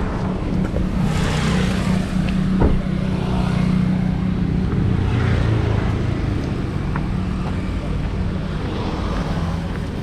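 A motor vehicle engine running steadily with a low, even hum, and one sharp knock about two and a half seconds in.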